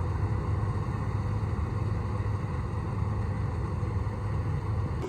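Vehicle engine running steadily with a low drone, holding an even speed.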